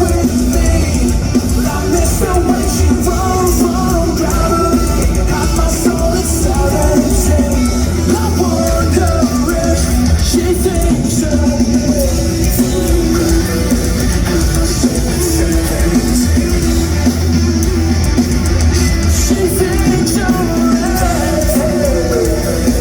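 Live rock band playing loud, with distorted guitars, drum kit and singing.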